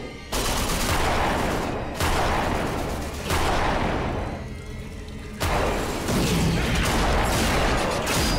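Gunfire in a first-person shooter video game: a run of loud blasts, one to two seconds apart, each dying away.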